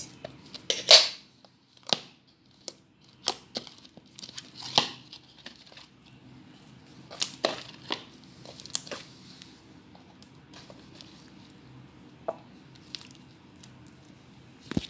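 Freshly made glue slime being squeezed, stretched and pulled apart by hand: irregular sticky crackles and tearing sounds, busiest in the first half, the loudest about a second in.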